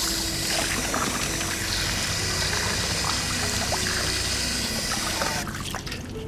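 Tap water pouring steadily into a stainless-steel basin, splashing over a fish being rinsed in it; the flow stops about a second before the end. Soft background music with steady low notes plays underneath.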